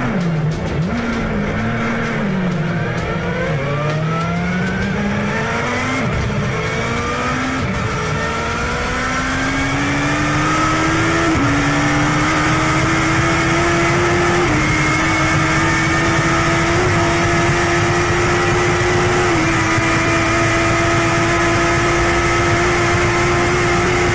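Turbocharged Suzuki Hayabusa engine revving at the line, then at full throttle from a standing start. Its pitch rises through each gear and drops at each upshift, then holds at high revs near top speed under heavy wind rush.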